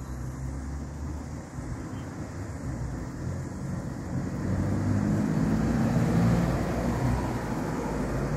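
Low rumble of passing road traffic, growing louder about four seconds in and easing off near the end.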